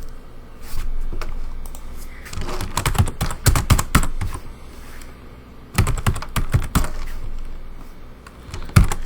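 Computer keyboard typing: two quick runs of keystrokes, one starting about two seconds in and another near six seconds, with a few more keystrokes near the end.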